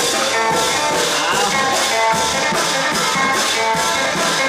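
Thai long-drum (klong yao) ensemble music: a steady beat of cymbal strokes, a little under three a second, over held melody notes.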